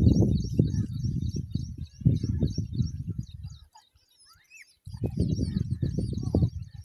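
Small birds chirping in quick, high, repeated notes, over a louder low rumbling noise that stops for about a second in the middle.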